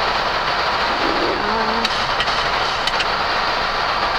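Steady rush of airflow and engine noise inside a Boeing 737 MAX cockpit during the climb after takeoff, with a few faint clicks near the middle.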